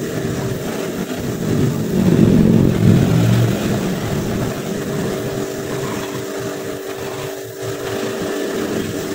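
Energy Cube car-wash machine running: a steady motor hum with a noisy rush over it, which swells for a second or two about two seconds in.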